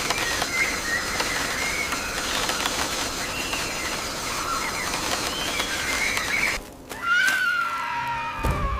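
Wavering, squealing animal calls over a dense, noisy bed of sound. The sound cuts out briefly near the end, then a long screech comes in, falling in pitch.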